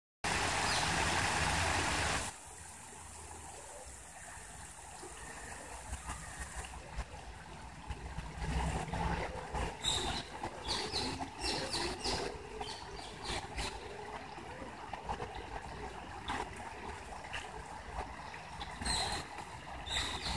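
Water trickling and splashing down the stepped stone basins of a garden fountain. A loud rushing hiss fills the first two seconds, and short high clicks and chirps come and go from about eight seconds in.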